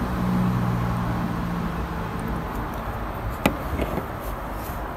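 Low, steady engine hum of a nearby motor vehicle over outdoor background hiss, fading away about halfway through. One sharp click comes about three and a half seconds in.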